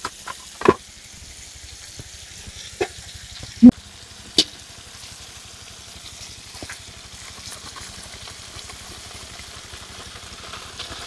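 Fish and chilies sizzling in a wok over a wood fire as pieces of fried tilapia are added with a metal spatula. A few sharp knocks of the spatula on the wok or plate cut through, the loudest about three and a half seconds in.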